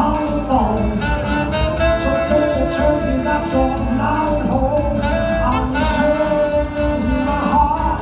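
A live band playing, with women singing together over it and a steady beat of sharp high percussion strikes.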